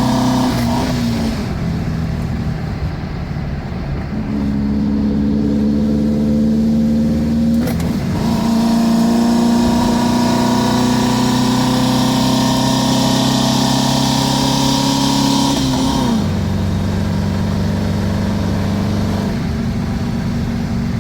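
VW Brasília's 1600 air-cooled flat-four, on a Solex 32 carburettor with a 28 mm venturi, pulling hard under load and heard from inside the cabin. The engine note climbs steadily, then drops abruptly three times, about two, eight and sixteen seconds in, as the drive goes up through the gears.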